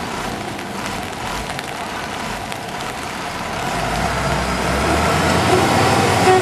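Road vehicle noise over a steady rushing background: an engine's rumble grows louder from about halfway through, and a horn gives short toots near the end.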